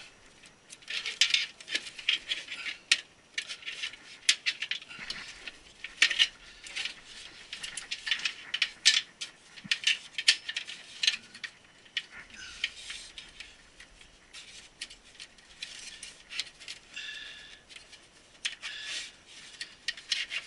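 Irregular clicks, taps and rattles of SATA cables and their plastic connectors being handled and pushed through a computer case.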